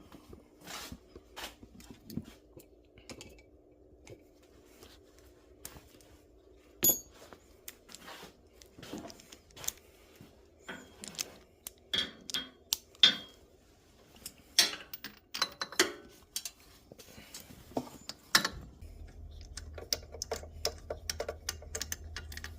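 Metal hand tools clinking and knocking irregularly against metal while a spark plug is worked out of the RZR 800's engine with a socket and extension. A low steady hum comes in near the end.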